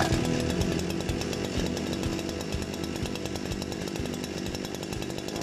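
Small two-stroke brush cutter engine running steadily, with a rapid, even firing.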